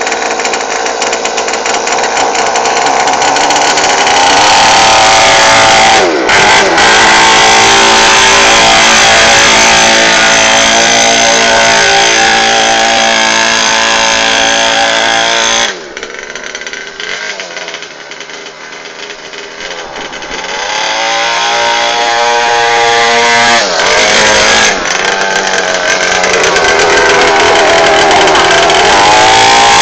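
Orion 50 mini dirt bike's small engine running hard and loud, its pitch rising and falling as the throttle is worked. Around the middle it drops away for a few seconds as the bike moves off across the lawn, then climbs in pitch and comes back loud.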